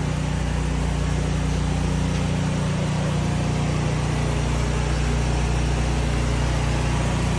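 An engine idling steadily, a low even drone with no change in speed.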